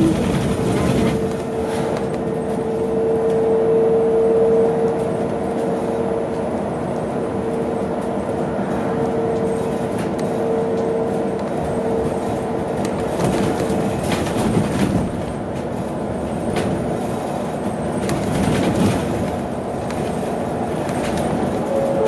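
BYD large electric bus heard from inside the cabin while driving: the electric drive motor's steady whine, which fades out about two-thirds of the way through, over continuous road and tyre rumble, with a few short knocks and rattles from the body.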